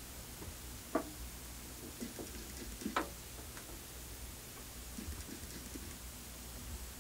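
Fisher belt-drive turntable running with an empty platter: a faint, steady low hum, with two sharp clicks about two seconds apart and a few softer ticks.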